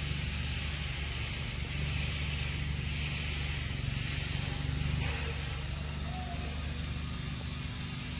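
A steady low motor hum, like an engine running, with an even high-pitched hiss over it.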